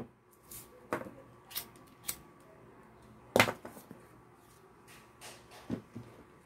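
Scattered light clicks and knocks of craft tools and materials handled on a tabletop: the scissors set down and a roll of grosgrain ribbon and a plastic headband picked up. The loudest knock comes a little past the middle.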